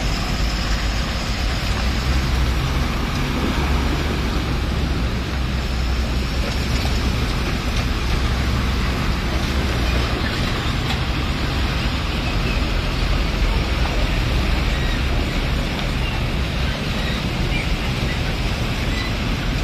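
Heavy trucks running in slow traffic on a muddy road: a steady engine and traffic noise, deepest at the low end, with no distinct single events.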